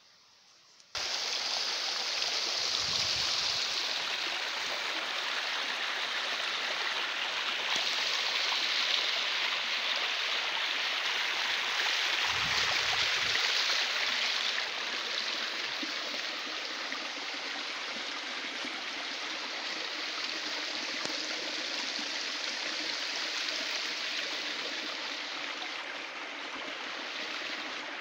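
Stream water pouring through a gap in a low stone channel wall and splashing into a shallow pool, a steady rushing and splashing that starts abruptly about a second in and eases a little about halfway through.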